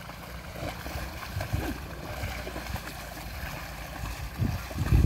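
Water sloshing and splashing as water buffalo wade through shallow river water, over a low wind rumble on the microphone that gusts loudest near the end.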